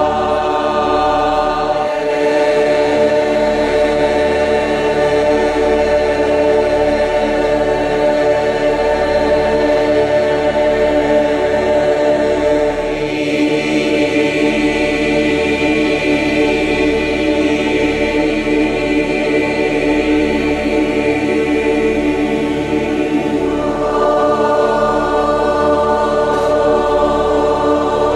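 A mixed group of men's and women's voices chanting long, held vowel tones together in a resonant sound chamber, the many pitches blending into one sustained sound. The blend of the chant changes about two seconds in, again about halfway through, and once more near the end.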